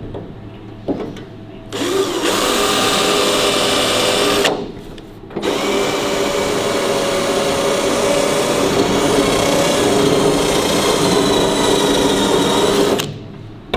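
Power drill with a spot weld drill bit cutting into a car door's sheet steel to drill out a spot weld. It runs steadily for about three seconds, stops briefly, then runs again for about seven seconds.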